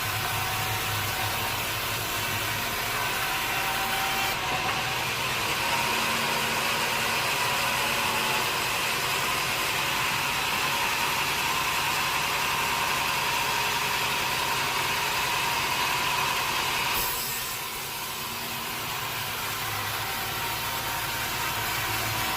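Sawmill saw cutting through a teak log: a steady machine hum, with the higher, louder sound of the blade in the wood from about four seconds in. The cut stops suddenly about three quarters of the way through, leaving the machine running.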